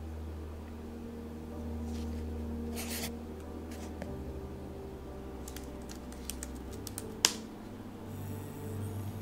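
A felt-tip marker scrapes briefly across paper about three seconds in. Later comes a quick run of computer keyboard key clicks, ending in one louder, sharper keystroke, typical of the Enter key.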